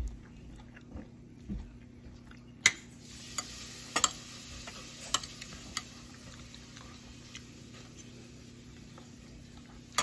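Metal spoon clinking and scraping against a ceramic plate while scooping rice: a handful of sharp clinks, the loudest about two and a half seconds in, with several more over the next few seconds and one near the end.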